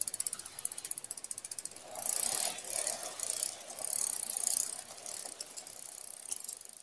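Bicycle freewheel ratchet clicking rapidly, a sound effect for a rolling bicycle, followed by three or four louder hissing bursts that fade out near the end.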